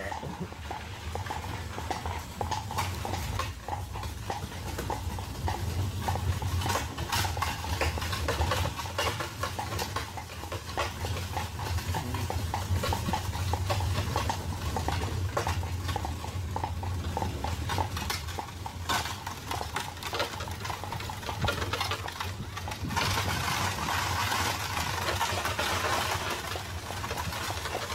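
Hooves of a pair of carriage horses clip-clopping along the road, over a steady low rumble of the horse-drawn carriage rolling. For the last few seconds a rushing hiss joins in.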